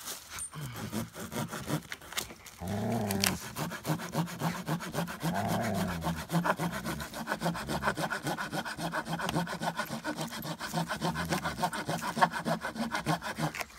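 Hand saw cutting through a piece of firewood in quick, even back-and-forth strokes.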